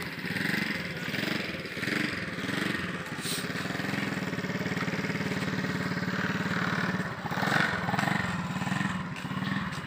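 An engine running steadily with an even hum for most of the stretch. Faint voices are heard at times.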